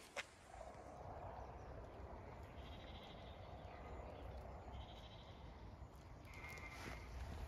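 Faint sheep bleating, a few separate short calls.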